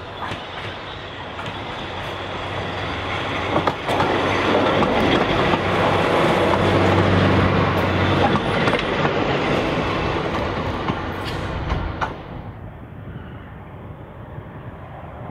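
Walker railmotor with twin Gardner 8LW diesel engines passing close by: the diesel engine note grows louder to a peak as it goes past, with its wheels clicking over rail joints. About twelve seconds in the sound drops suddenly to a much fainter, distant train sound.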